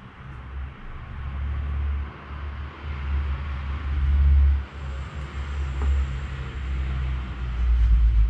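Low engine rumble and road noise from vehicle traffic, swelling in at the start and staying loud, with a brief dip about halfway through.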